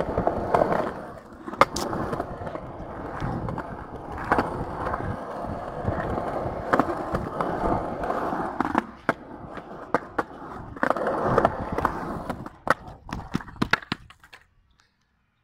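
Skateboard wheels rolling on painted concrete: a steady rumble broken by sharp clacks now and then. It dies away about a second before the end as the board slows.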